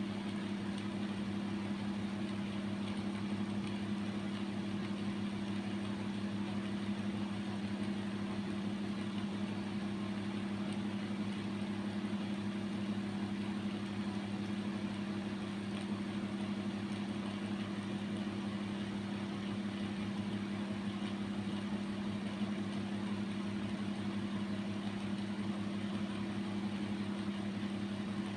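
A steady, unchanging low mechanical hum, like a small motor running.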